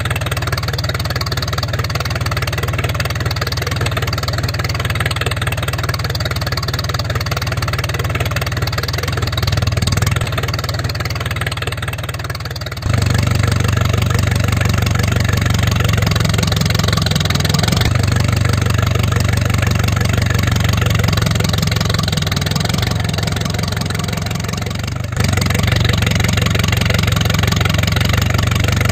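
Small motor of a homemade toy tractor running steadily as it pulls a soil-loaded trolley, a continuous low drone. It gets suddenly louder about 13 seconds in and again about 25 seconds in.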